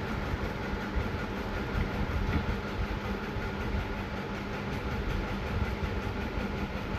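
A steady mechanical rumble with a constant hum.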